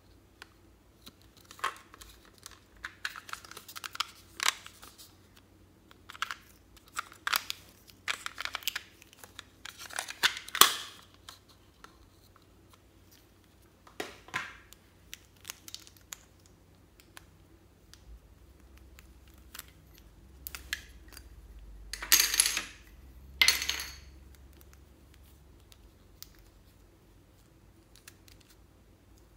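A plastic children's lipstick set being handled: scattered plastic clicks and crinkling as the case is worked open and lipstick tubes are taken out, with two louder crinkling rustles a couple of seconds apart about three-quarters of the way through.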